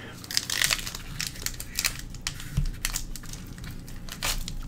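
Foil wrapper of a Pokémon trading card booster pack crinkling and tearing as it is handled and opened by hand, in irregular crackly bursts, with a dull bump about halfway through.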